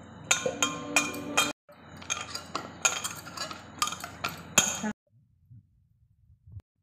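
Bangles and a steel bowl clinking and rattling as hands mix and knead dough: sharp clinks with a little metallic ringing, in two runs, stopping about five seconds in.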